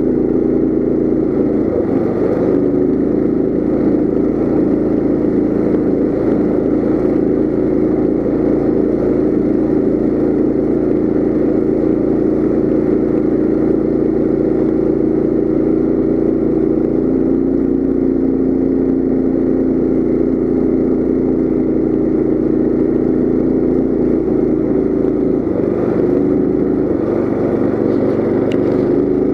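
Coleman CT200U mini bike's 196cc single-cylinder four-stroke engine running steadily under way, its pitch dropping slightly about halfway through.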